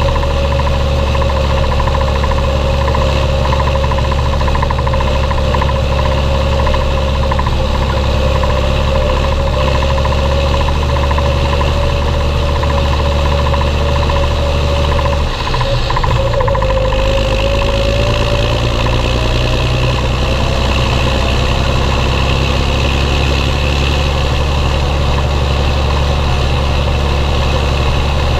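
Belarus MTZ-1221.3 tractor's six-cylinder diesel engine running steadily under load while pulling two grain trailers loaded with about 16 tonnes of wheat. About halfway through the sound dips briefly, then the engine note climbs slightly.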